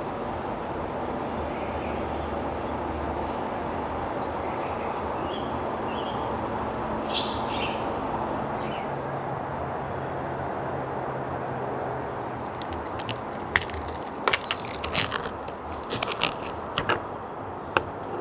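Steady outdoor background hum with a few bird chirps, then, from about two-thirds of the way through, a run of sharp clicks and taps from a plastic pudding cup being handled and turned over onto a plastic tray.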